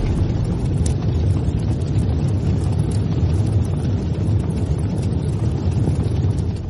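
Logo-intro sound effect: a deep, steady rumble, easing off near the end.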